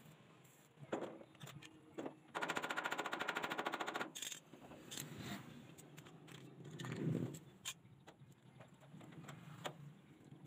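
Arc welding on a tricycle sidecar's metal frame: a dense, rapid crackle for about two seconds a couple of seconds in. Before and after it come scattered sharp metal taps and clanks.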